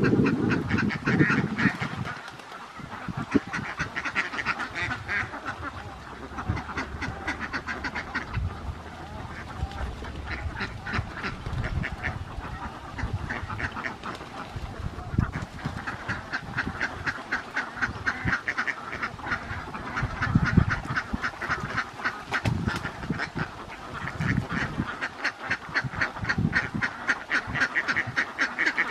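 A large flock of domestic ducks quacking in a dense, continuous chorus of overlapping calls. A low rumble runs under the calls for the first two seconds.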